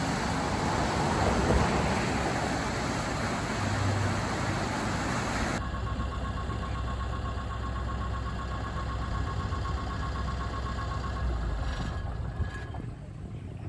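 Rushing water pouring through a large culvert as a beaver pond drains. About five and a half seconds in it gives way abruptly to the steady low running of a Volvo ECR145 excavator's diesel engine, with a faint pulsing whine.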